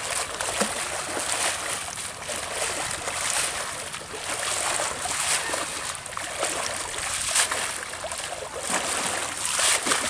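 A cast net being swished and dunked in shallow river water, with repeated irregular splashing and sloshing.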